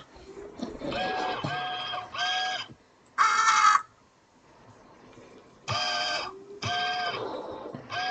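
Crows cawing: a run of harsh calls about half a second each, three close together about a second in, one louder and higher call near three seconds, and two more past the middle.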